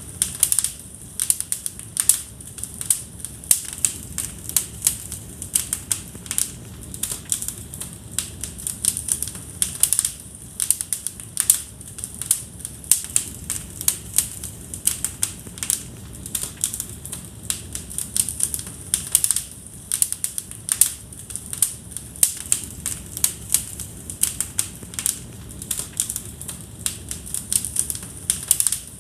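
Wood fire crackling in a fireplace: a dense, irregular run of sharp pops and snaps over a soft low rumble of the flames.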